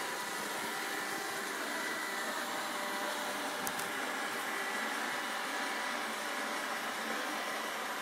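iRobot Roomba 780 robot vacuum running steadily on carpet: an even whirr of suction motor and brushes with a faint whine in it. A brief double click about halfway through.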